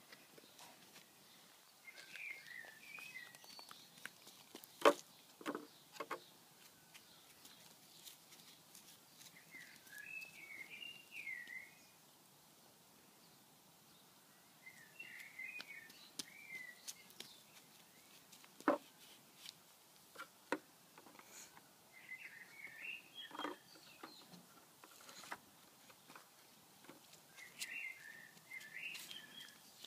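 A songbird singing short warbling phrases about every six seconds, over a handful of sharp knocks from small plastic balls dropped onto paving slabs and into a wooden tray. The loudest knock comes about five seconds in.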